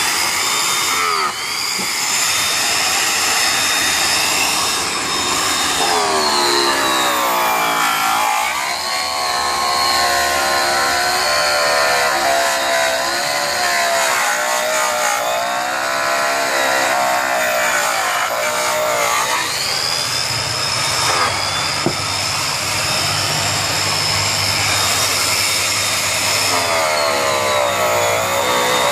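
Handheld high-speed polisher running a yellow airway buffing wheel against an aluminum truck wheel in the aggressive cutting stage with brown rouge. A steady motor whine whose pitch wavers up and down, over the hiss of the buff on the metal.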